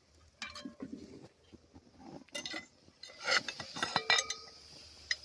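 Metal cookware clinking and knocking: a handful of sharp clinks with brief ringing, busiest about three to four seconds in, as a pot and utensils are handled at the cooking fire.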